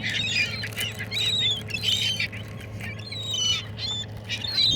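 A flock of seagulls calling over one another, many short overlapping cries, as they crowd in to be fed.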